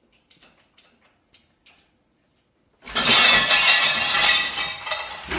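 Dishes clinking lightly in a dishwasher rack as a dog noses them. About three seconds in comes a loud crash of dishes falling and shattering that lasts a couple of seconds.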